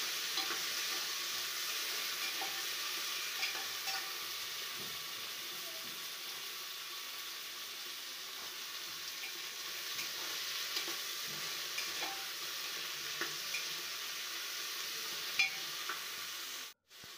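Cubed potatoes frying in hot oil in an aluminium pressure cooker, a steady sizzle, with scattered light clicks from a metal slotted spoon stirring against the pot. The sound cuts off suddenly near the end.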